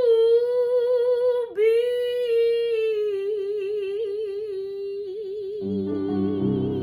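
A woman's jazz voice holds one long, high note that breaks briefly about a second and a half in, then resumes with a widening vibrato. Grand piano chords come in underneath near the end.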